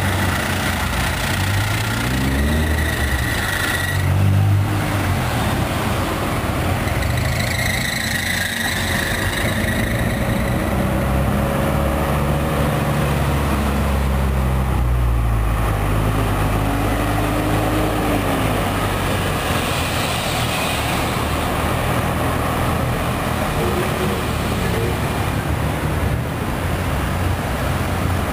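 Classic Toyota twin-cam engine revving up and down several times, with a high-pitched squeal a few seconds in and again around eight seconds in: the squeal of a slipping fan belt.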